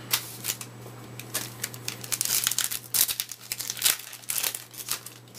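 Baseball card pack wrapper crinkling and tearing as it is ripped open, a quick run of sharp crackles that is busiest in the middle.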